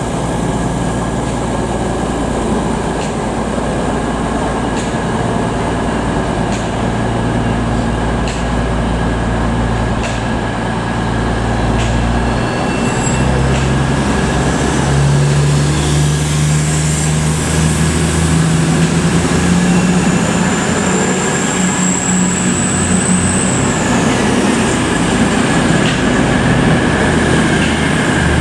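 Class 222 Meridian diesel-electric multiple unit pulling away from a platform, its underfloor Cummins diesel engines running. About halfway through, the engines rev up as the train accelerates. A high whine rises and then falls away near the end.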